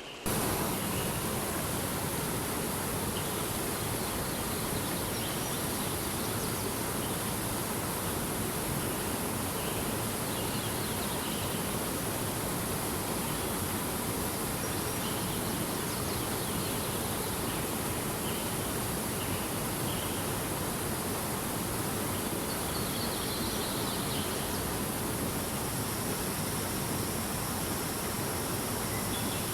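River water rushing steadily, a constant even noise of flowing water, with faint, scattered high chirps over it.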